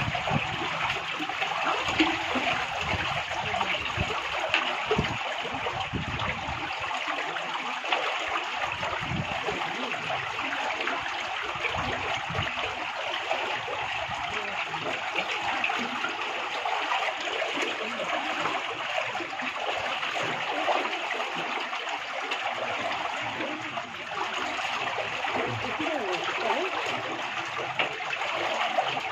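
Steady rushing of water pouring through a narrow concrete channel, with a few low thumps and splashes in the first half.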